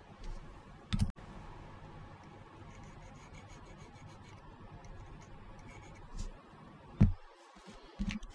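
Small hard knocks and clicks of plastic glue bottles and model-kit parts being put down and handled on a work mat, with a sharp knock about a second in and a louder one about seven seconds in. There is a faint steady room hum between them.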